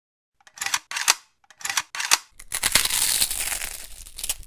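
Crisp crunching and crinkling noise: four short bursts in the first two seconds, then a denser crunching stretch of about two seconds that fades near the end.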